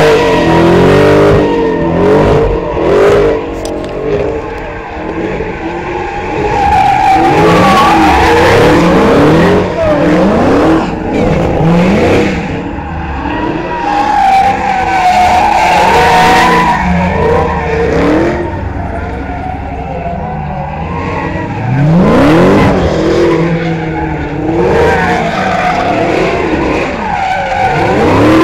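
Dodge muscle car V8 revving up and down hard through donuts, its rear tires spinning and squealing on the asphalt.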